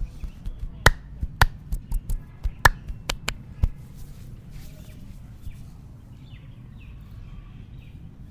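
Sharp hand slaps of a percussive Indian head massage: a quick, irregular run of strikes that stops about three and a half seconds in.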